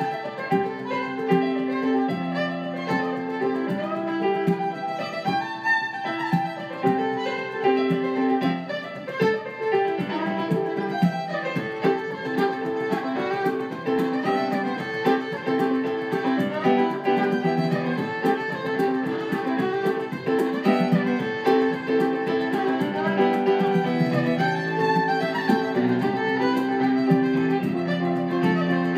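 Fiddle and keyboard piano playing a lively traditional Irish-Scottish tune in 6/4 time, with a bodhrán beating a steady rhythm under them.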